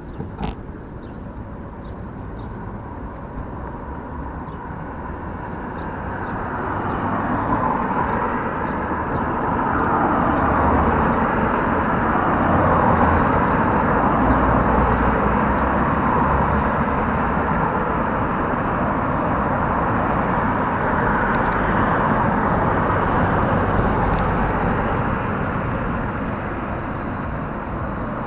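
Steady road and traffic noise heard from a moving bicycle, swelling over several seconds and then holding. A few light clicks near the start.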